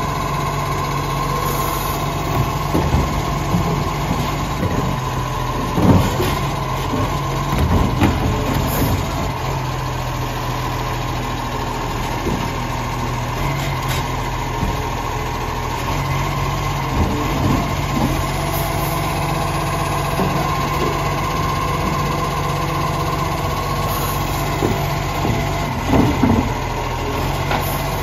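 Side-loading garbage truck's engine running at idle, with the whine of its hydraulic lifting arm as the arm tips and returns a green-waste bin. A few sharp knocks come about a quarter of the way in, shortly after, and near the end.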